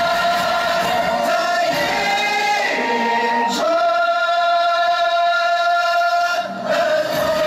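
Music with choral singing: long held sung notes that shift pitch a few seconds in.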